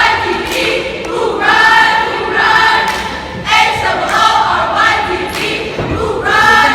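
Many voices singing or chanting together in unison, in loud phrases about a second long with short breaks between them.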